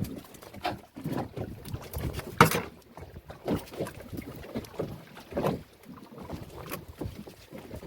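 Irregular splashing of water and gusts of wind on the microphone aboard a small open fishing boat at sea, in uneven bursts with no steady engine note.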